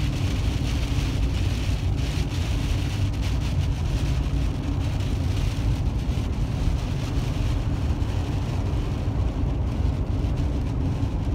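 Steady road noise heard inside a vehicle's cabin at highway speed: a low tyre and engine rumble with an even hiss from the wet pavement.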